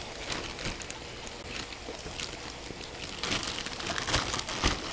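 Clear plastic UMAi dry-aging bag rustling and crinkling as it is handled and turned over the meat, the crinkles getting busier in the second half, with a soft thump near the end.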